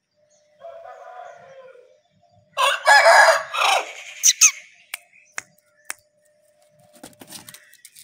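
A rooster crows loudly once, about two and a half seconds in, after a quieter call just before it; a few sharp clicks follow.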